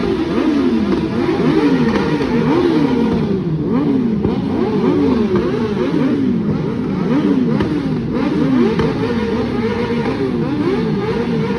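Several superbike engines with full-system exhausts revving up and down over and over, the revs of one overlapping another in quick rising and falling blips.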